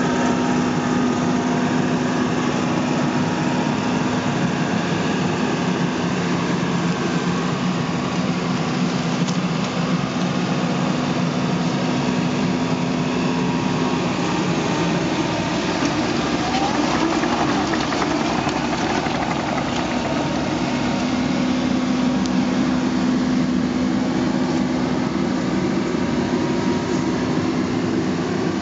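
New Holland E80B midi excavator's diesel engine running steadily while it powers a hydraulic earth auger screwing in ground anchors. The engine note shifts a little in the middle and then settles back to the same steady hum.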